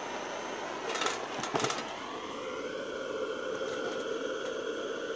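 Handheld propane torch running with a steady hiss, its flame aimed into the steel can of a bee smoker to light burlap. There are a few sharp clicks about a second in, and from about two seconds in the flame takes on a steady humming tone.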